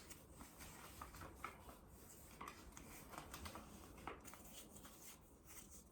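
Near silence with a few faint rustles and small clicks: an anti-snoring head strap being handled and fitted around the head.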